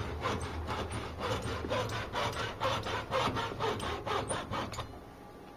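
A hand saw cutting quick back-and-forth strokes, about three a second, into the plastic rib inside a motherboard power jack. The sawing stops shortly before the end.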